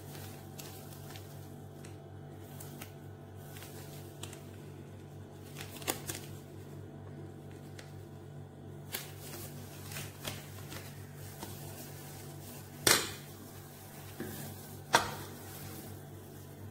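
Scattered sharp clicks and clinks of a spice jar against a ceramic bowl as spices are added to raw chicken, the two loudest about two seconds apart near the end, over a steady low hum.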